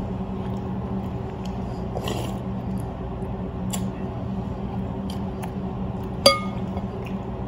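Restaurant room tone: a steady low hum with a few soft clicks, and one sharp clink of dishware about six seconds in.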